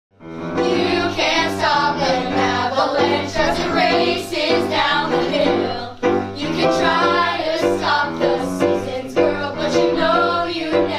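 Youth show choir of children singing a song together with piano accompaniment, fading in at the start.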